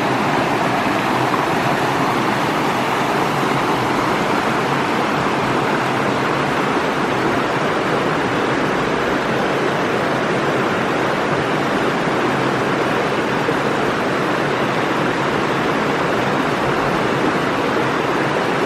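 Mountain creek water rushing, a steady, even wash of flowing water.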